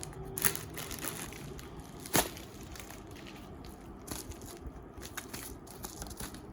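Crinkling and rustling of parcel packaging being handled and opened, with scattered small clicks and one sharper click about two seconds in.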